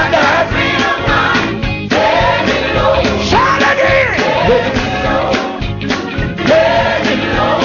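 Gospel music: a lead voice sings long, held, bending notes over a full band with a steady beat.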